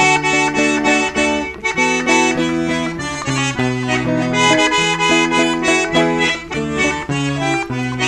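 Piano accordion (sanfona) playing an instrumental interlude of a gospel song: a melody of short held notes over changing low notes.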